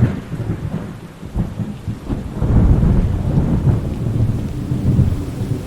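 Thunder rumbling low and continuously over steady rain; the rumble eases off briefly, then swells again about two and a half seconds in.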